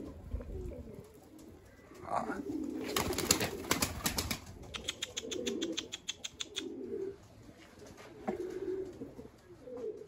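Homing pigeons cooing in soft low murmurs over and over. A clattering flurry, like flapping wings, comes about three seconds in, followed by a fast, even rattle.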